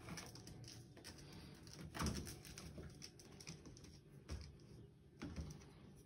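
A ferret tussling with a canister vacuum cleaner's hose on carpet: soft scuffling and scratching with a few thumps, the loudest about two seconds in and others about four and five seconds in.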